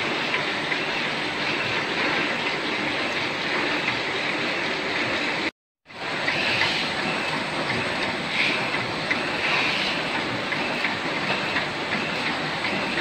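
Sticker die-cutting machine running with a steady mechanical clatter and a faint repeating beat. The sound drops out for a moment about halfway through.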